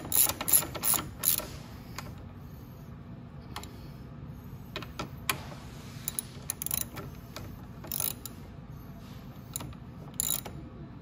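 Ratchet wrench clicking as a nut is tightened onto the exhaust mounting bolt: a quick run of clicks in the first second and a half, then scattered single clicks.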